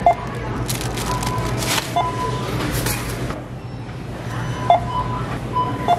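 Self-checkout barcode scanner beeping as items are scanned one by one: four short beeps a second or two apart, over background music.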